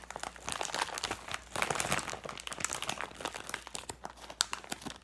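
Crinkly packaging rustling and crackling irregularly as it is handled, with squishy toys being put into it.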